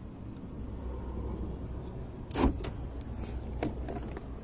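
A low motor hum with a sharp click about halfway through and lighter clicks after it, as the power door unlock is tried on a 2006 Pontiac Montana. The mechanic suspects a door lock actuator that is getting stuck.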